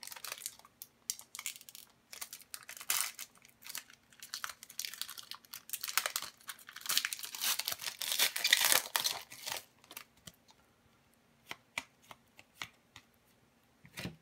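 Foil wrapper of an Upper Deck hockey card pack crinkling and tearing open, loudest about eight to nine seconds in. After that only a few light clicks as the cards come out.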